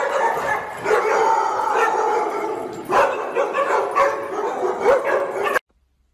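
A pack of dogs barking and howling over one another, many voices at once, cutting off suddenly near the end.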